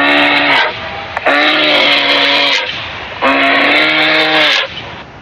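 Polar bear growling: three long growls at a steady low pitch, the first under way at the start, the second about a second in and the third about three seconds in.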